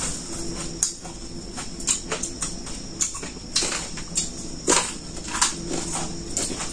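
Hand-eating a plate of puffed rice (muri): fingers scooping the dry grains from the plate and mouthfuls being chewed, heard as irregular crisp clicks, crunches and rustles, several louder than the rest, over a steady high hiss.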